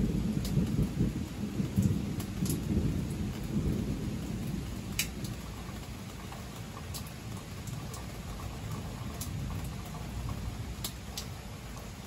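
A rumble of thunder starts suddenly, loudest over the first few seconds, then slowly fades, over steady rain with scattered ticks of drops.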